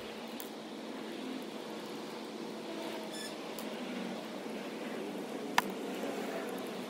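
Steady faint noise like a fan or room hum, heard while small wheel screws are taken out in fast-forward, with one sharp click about five and a half seconds in.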